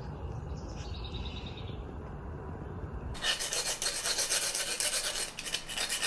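Hand file scraping back and forth along the cut edge of a wire mud dauber screen to take off the sharp edges, in quick repeated strokes that begin suddenly about three seconds in. Before that there is a low rumble and a short bird chirp.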